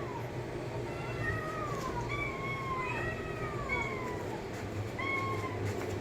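Kittens meowing: a run of short, high, falling mews, several overlapping between about one and four seconds in, and one more near the end, over a low steady hum.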